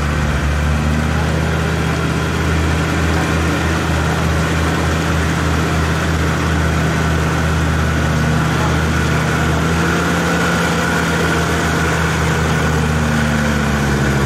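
Land Rover Discovery TD5's five-cylinder turbodiesel engine running steadily under load while its mud tyres spin in deep mud, the vehicle stuck and not moving forward.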